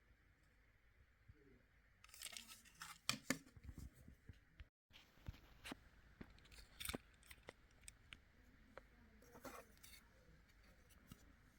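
Faint handling noise: scattered clicks and short rustles, busiest a couple of seconds in.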